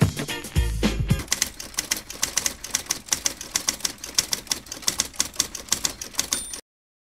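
A short stretch of music ends about a second in. Rapid typewriter keystrokes follow, clacking several times a second, and stop abruptly near the end.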